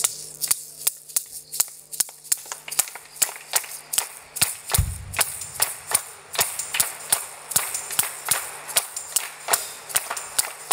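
A group of people clapping their hands in a steady rhythm, about two to three claps a second, the clapping growing fuller after about three seconds. A single low thump comes about five seconds in.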